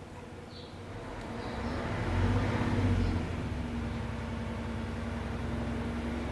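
Honda Odyssey minivan pulling away. Its engine and road noise build over a couple of seconds, peak, then settle into a steady run.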